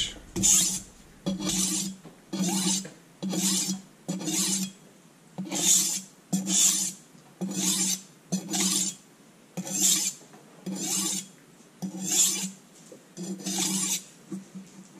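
A stainless chef's knife blade scraping across a Norton Crystolon silicon-carbide bench stone in steady strokes, about one a second, around fourteen in all. This is hand sharpening with a burr already raised on both sides: the edge is being worked to weaken the burr.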